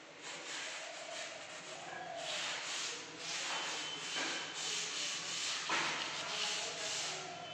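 Hand-held sandpaper rubbed back and forth over a wooden panel door, in rasping strokes about once a second, smoothing the surface in preparation for burnishing.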